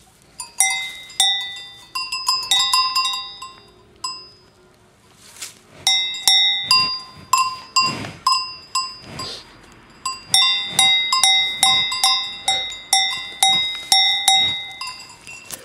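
Cowbells clanking as cows move their heads: repeated sharp strikes, each ringing on and fading, uneven at first, a pause of about a second and a half near the middle, then coming about twice a second in the second half. A few breathy sniffs from a cow close to the microphone come around the middle.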